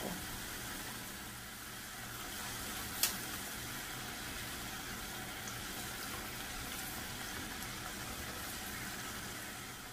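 Tortilla triangles frying in hot oil in a stainless steel pan: a steady sizzling hiss, with one sharp click about three seconds in.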